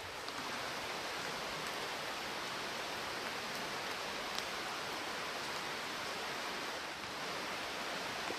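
Steady rushing of a woodland creek, with one faint click about four seconds in.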